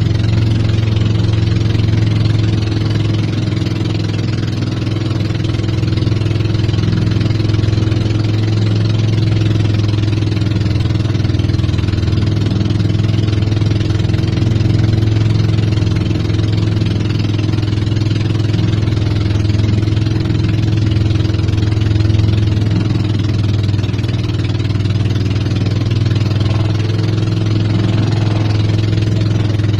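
Engine of a motorized wooden outrigger boat running steadily under way, a constant low hum, with water rushing and splashing along the hull.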